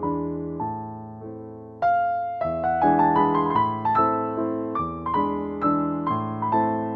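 Background piano music: a slow melody of struck notes over chords, with a held chord fading before a louder new phrase begins a little under two seconds in.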